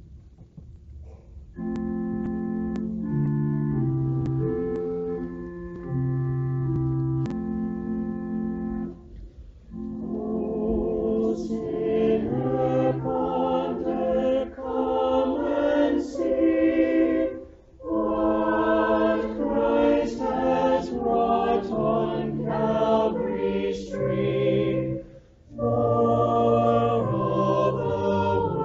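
Organ plays sustained, steady chords as an introduction starting about a second and a half in. About ten seconds in, a church choir comes in singing with the organ, in phrases broken by short pauses.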